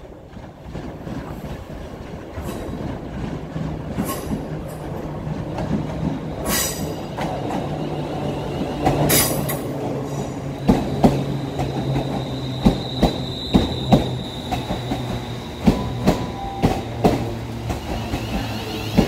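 A Class 350 electric multiple unit arriving along a platform, growing louder as it approaches, with a steady electric hum. Brief high wheel squeals come near the middle, then the wheels click sharply and repeatedly over the rail joints as the carriages pass.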